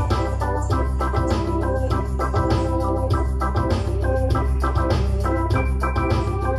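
Portable electronic keyboard played with both hands: a gospel tune of chords over a heavy, continuous bass line.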